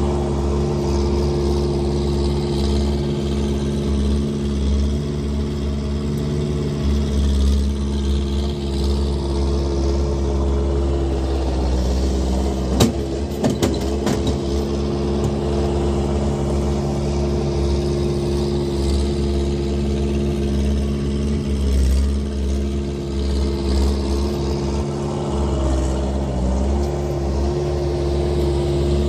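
Skid steer engine running steadily, its pitch dipping briefly a couple of times, with a few sharp knocks about halfway through. The machine lacks a proper exhaust.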